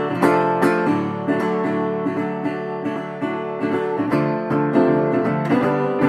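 Background music on a plucked string instrument, a run of evenly spaced picked notes.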